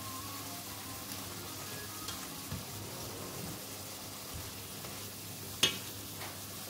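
Wild boar sausage slices with onion and leek sizzling steadily in a stainless steel pot while white wine cooks off, stirred with a spatula. There is one sharp knock against the pot about five and a half seconds in.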